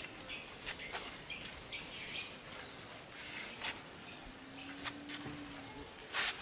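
Fingertip drawing lines through fine black sand: short, soft scratching strokes, with several sharp clicks among them.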